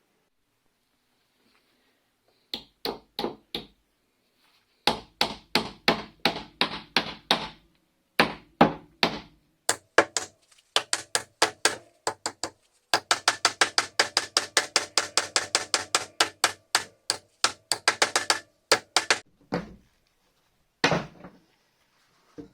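Hammer blows on pallet wood in quick runs: a few strikes, a pause, then longer runs, the longest a fast steady hammering of about five or six blows a second, with a last short burst near the end.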